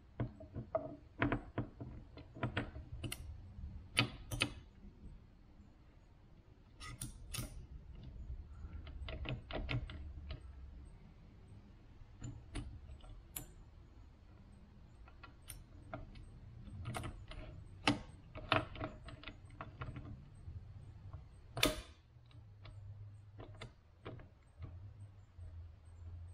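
Steel gears, shafts and the shift selector plate of a ride-on mower gearbox clicking and clinking as they are fitted together by hand in the cast housing: irregular sharp metallic clicks, a few louder knocks among them.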